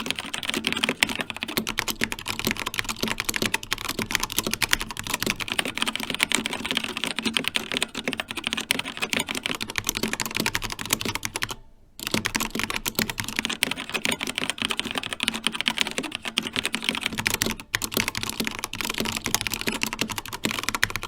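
Fast, continuous typing on an Xtrfy K4 TKL mechanical keyboard with linear red switches: a dense patter of key strokes and bottoming-out clacks. It pauses briefly about halfway through, and again for a moment later on.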